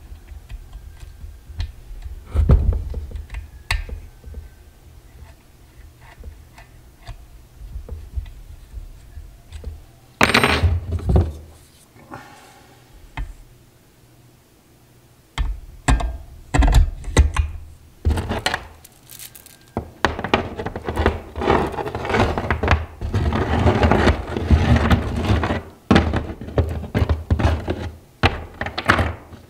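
Metal knocks and clicks as a chainsaw guide bar is handled and set onto the saw body, with a louder clunk about ten seconds in. From about two-thirds of the way through, a loose steel saw chain rattles and clinks continuously as it is lifted and untangled.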